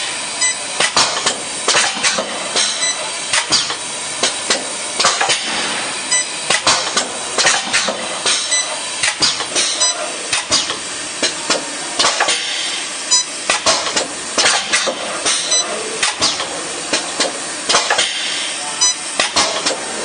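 Automatic copper braided wire welding machine running: sharp mechanical clicks and knocks from its pneumatic clamps and cylinders, several a second at uneven spacing, over a steady hiss.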